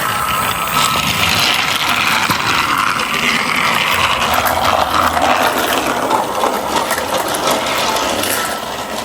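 Plastic toy train playset clattering: a continuous rattling, whirring mechanism noise with many small clicks.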